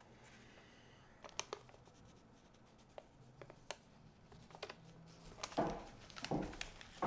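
Small sounds of drawing on paper at a desk: scattered light taps and scratches, then louder rustling of paper and movement near the end.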